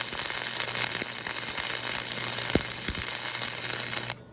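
Arc of a 100 V gasless flux-core semi-automatic wire welder crackling and sizzling steadily as it lays a bead on thin steel plate at its lowest current setting, cutting off sharply near the end.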